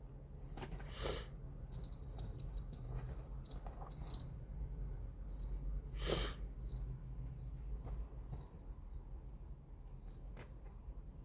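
Cat teaser wand toy rattling and jingling in short, irregular bursts as a kitten bats and pulls at it.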